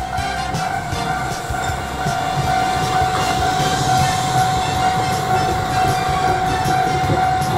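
Tobu 6050-series electric train running into the station and past close by, wheels clicking over the rails, getting louder about two seconds in as the cars reach the platform. A steady high tone sounds throughout.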